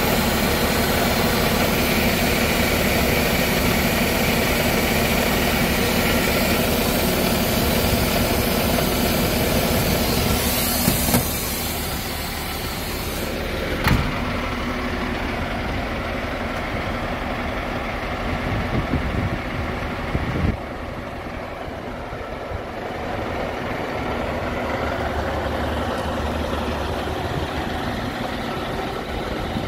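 Volvo F12 400 tractor unit's 12-litre straight-six diesel idling steadily, loudest at the exhaust tailpipe and dropping in level after about ten seconds. Two short knocks come near the middle.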